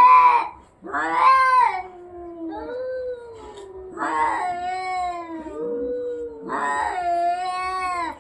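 Cats caterwauling in a fight standoff: a string of long, drawn-out yowls that waver up and down in pitch, one after another with hardly a gap.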